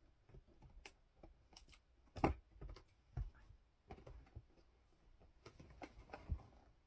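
Toy car packaging being handled and opened: scattered light taps, rustles and scrapes, with a couple of sharper knocks, the loudest a little over two seconds in.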